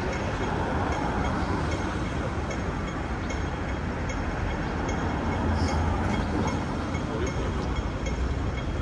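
Steady city street traffic noise with a heavy low rumble of passing vehicles, and a faint high tick repeating about every 0.8 seconds.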